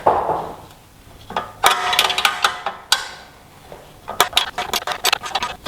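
Metal hardware and hand tools at work fitting the nut onto a front suspension thrust-arm bolt: metal clinking with a brief ringing, then a run of quick clicks from about four seconds in.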